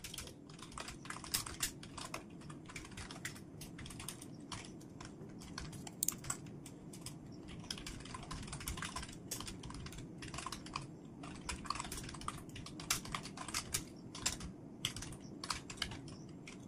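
Typing on a computer keyboard: a steady run of quick, irregular keystrokes with brief pauses, as a text description is typed out.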